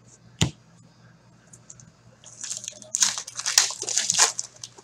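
A short tap about half a second in, then a foil hockey card pack wrapper crinkling and tearing as it is ripped open, a crackling that lasts about two seconds near the end.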